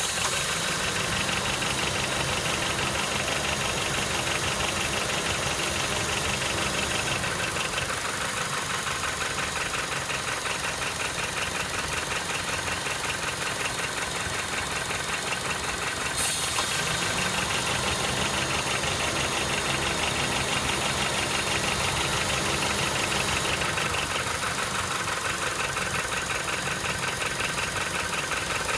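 Honda K20A inline four-cylinder engine of a Step WGN running steadily with a fast, even rattling knock, the abnormal engine noise (garagara) that the owner is showing. A single sharp click comes about sixteen seconds in.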